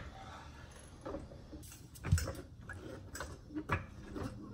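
Hydraulic floor jack being worked by its long handle: a series of clicks and knocks, about two a second, the loudest about two seconds in.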